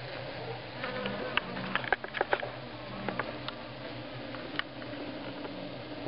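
A cluster of swarming honeybees hums steadily and low. A few sharp ticks come in a group between about one and two and a half seconds in, and once more near the end.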